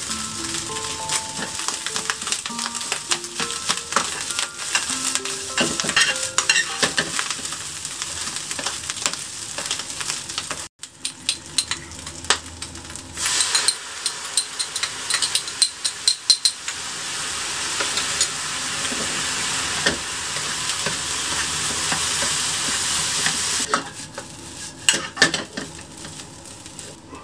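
Food sizzling in a frying pan while it is stirred, with frequent clicks and scrapes of the utensil against the pan. After a short break about ten seconds in, the sizzle becomes steadier and louder for a stretch. Light background music plays under it at the start and near the end.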